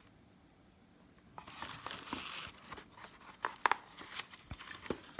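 Packaging being handled: a second or so of crinkling rustle, then a few sharp clicks and taps as the pieces of the set are moved.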